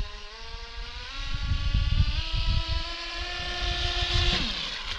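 Radio-controlled speedboat's motor whining at speed, its pitch climbing as it runs toward the camera, then dropping sharply about four and a half seconds in as it passes by.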